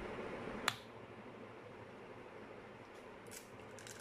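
A single sharp click about a second in, then faint crackling of an eggshell being pulled apart over a mixing bowl near the end.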